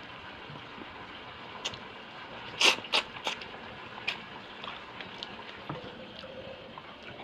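A person eating with the hands: wet chewing and lip smacks, a handful of short sharp clicks, the loudest a little under three seconds in, over a steady faint hiss.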